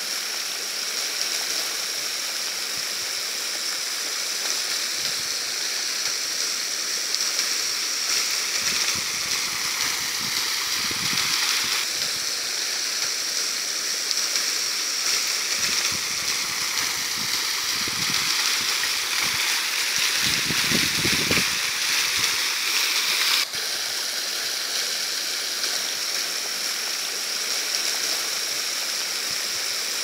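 Waterfall spray pouring and splashing down a mossy rock face into a shallow stream: a steady, hissing rush of falling water, with a momentary break about two-thirds of the way through.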